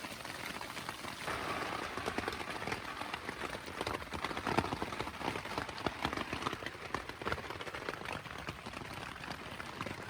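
Rain pattering on a tent awning, a dense, steady run of drop hits.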